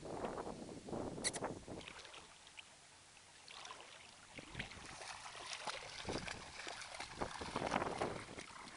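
Shallow pond water splashing and sloshing around a Great Dane puppy's legs as it stands and wades. The splashing comes in uneven bursts, goes quieter a couple of seconds in, and picks up again about halfway through.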